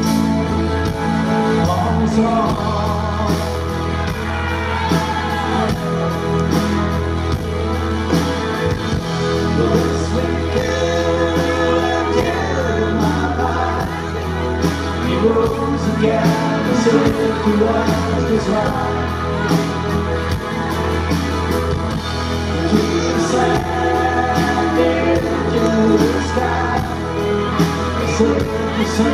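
Rock band playing live through a PA, with drums, bass guitar and keyboards under a wavering electric guitar lead line. Regular cymbal and drum hits keep the beat throughout.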